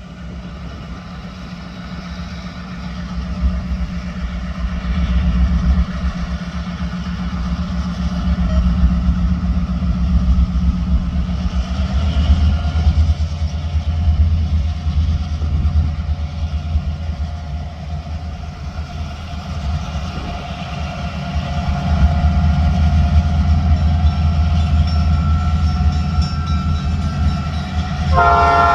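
Diesel freight locomotives running with a steady deep engine rumble that swells and eases. Near the end a locomotive air horn starts blowing, several tones sounding at once.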